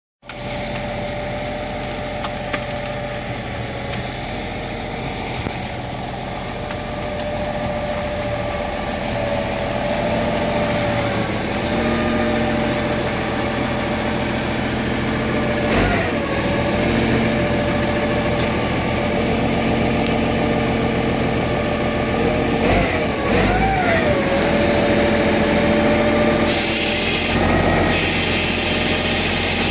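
Heavy equipment engine running steadily nearby, with a whine that wavers up and down in pitch a few times.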